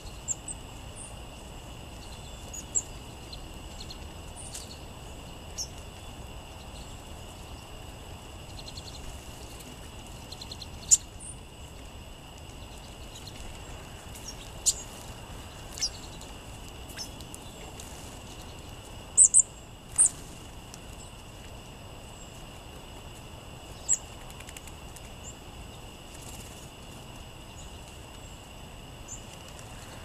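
Short, high chip notes from sparrows feeding, scattered through, with the loudest ones in the middle stretch and a single sharp tap about twenty seconds in. A steady high-pitched hiss runs underneath.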